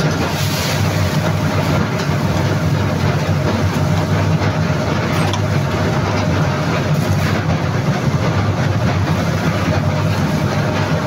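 Steady low drone of running plant machinery at a silo-discharge bagging scale, with granular material pouring through the filling spout into a woven sack.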